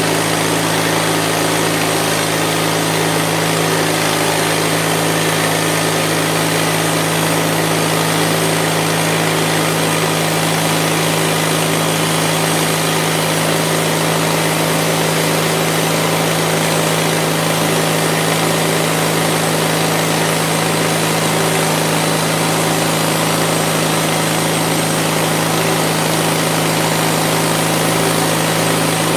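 Mighty Mite bandsaw mill running steadily, its engine under constant load as the band blade cuts through an Alaska yellow cedar log.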